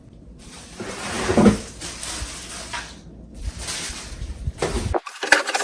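Rustling and handling of packaging as vacuum parts are unpacked, swelling twice, with a few sharp plastic clicks and knocks near the end.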